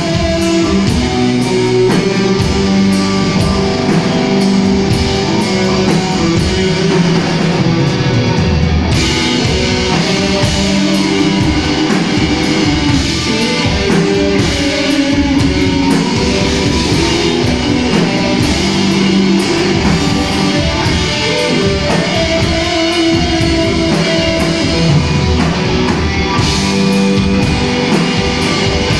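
Doom metal band playing live and loud: heavy electric guitars over drums, with regular cymbal strokes. About nine seconds in, the sound thickens as a wash of cymbals comes in.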